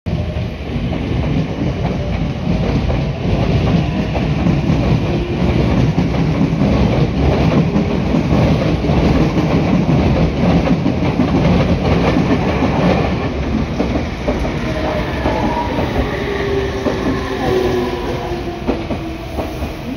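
Electric commuter trains running past a station platform, with heavy rumbling and wheels clattering over rail joints. From about 14 s a red 3500-series train slows into the platform, and faint whining tones rise and fall as it brakes.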